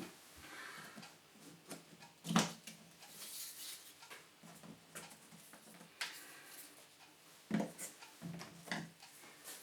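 Scattered light knocks and rustles of small objects being picked up and set down on a hard surface, with a sharper knock about two seconds in and another near the end.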